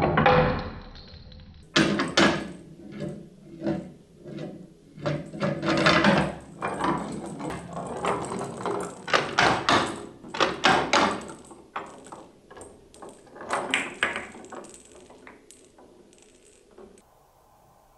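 Plastic balls rolling and clattering through a toy plastic block marble run, rattling down chutes and knocking against the pieces with many clicks. The sound dies away near the end as the balls come to rest.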